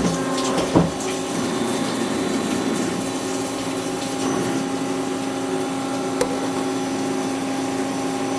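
CNC lathe running under flood coolant while turning an aluminium-style bar-stock knob: a steady machine hum with the spray of coolant, and a brief knock just under a second in.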